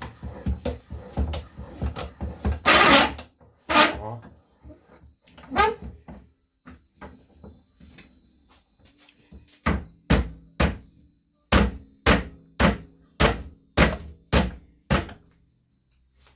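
A steel bench vise is wound tight with quick rattling clicks. Then a hammer strikes about ten times, roughly twice a second, on a small electric motor clamped in the vise, knocking a part out of it.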